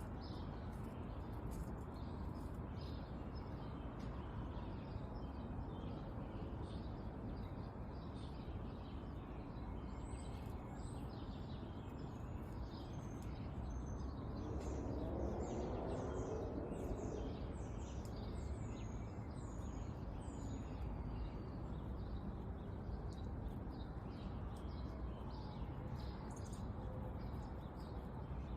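Small songbirds chirping with many short, high notes over a steady outdoor background hiss, with a quick run of high chirps through the middle. A lower rumble swells and fades about halfway through.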